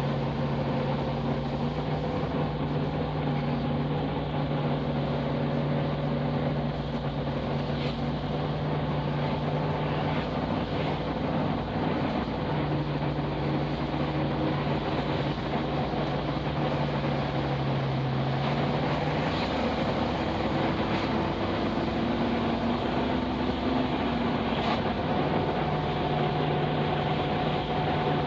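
Car engine running at a steady cruise with road and wind noise, heard from inside the cabin. The engine note dips and changes pitch about two-thirds of the way through, then settles back to a steady drone.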